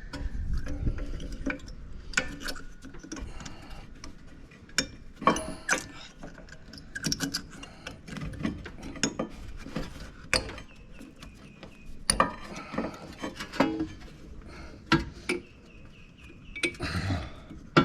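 Irregular metallic clinks, taps and knocks of steel brake parts and hand tools being handled while fitting rear brake pads and their clips into the caliper bracket.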